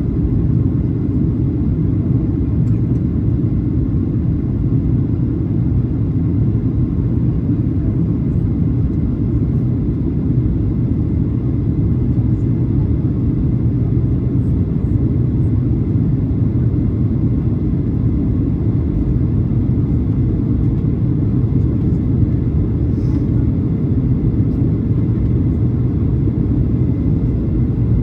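Steady low rumble of a Boeing 737-800 in flight: its CFM56 jet engines and rushing air, heard inside the cabin, unchanging throughout.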